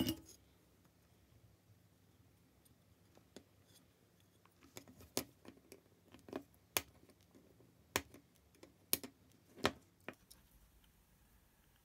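Side cutters snipping the soldered component leads off the underside of a circuit board: about half a dozen short, sharp snips in the second half, with a brief knock at the very start.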